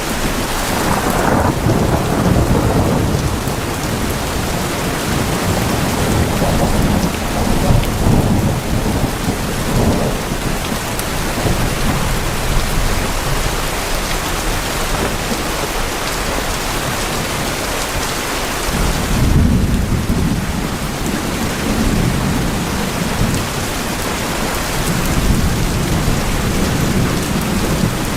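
Steady rain on tin roofs, with thunder rumbling through it: a roll near the start, another about two-thirds of the way in, and a weaker one near the end.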